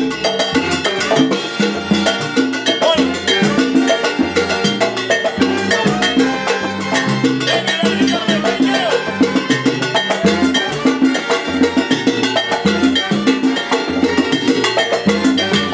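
Live salsa band playing: a busy percussion rhythm over a stepping bass line, with horns.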